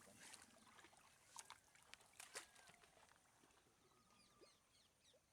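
Near silence: faint outdoor ambience with a few soft clicks in the first half and faint, short high chirps later on.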